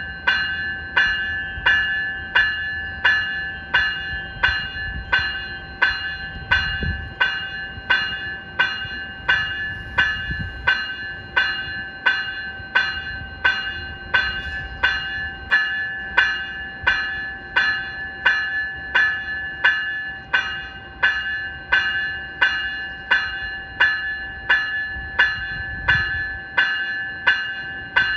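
Graham-White E-Bell on an NCTD Coaster cab car ringing steadily at about two strikes a second, each strike a high-pitched electronic bell tone that fades quickly. A low rumble runs underneath.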